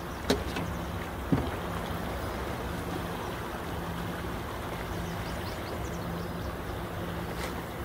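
Water splashing and lapping beside a small boat as a hooked trout thrashes at the surface near the landing net, over a faint low hum that comes and goes. Two sharp knocks, about a second apart, near the start.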